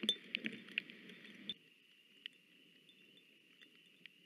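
Rain falling on the nest and the nest camera: irregular sharp drips and ticks over a steady hiss of rain. About a second and a half in, the drips thin out and the hiss grows fainter.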